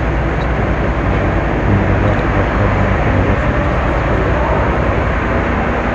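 Loud, steady machinery noise of a feed-mill loading system running, with poultry feed being fed through overhead pipes into a bulk feed truck.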